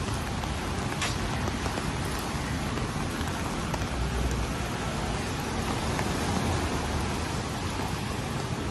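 Steady rain falling in a city street, an even hiss with a few sharp drop ticks and a low rumble underneath.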